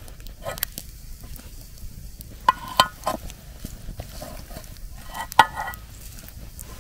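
Metal camp cookware clinking: several sharp clinks with a short metallic ring, the loudest about two and a half, three and five and a half seconds in.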